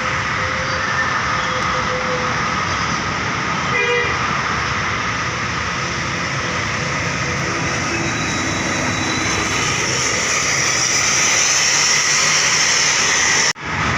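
Steady noise of passing road traffic, buses among it, engines and tyres, growing a little louder toward the end, with one short horn toot about four seconds in.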